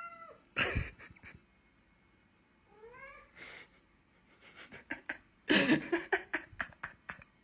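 A cat meowing, with short calls that bend up in pitch at the start and about three seconds in. A quick run of sharp noisy bursts, the loudest part, follows near the end.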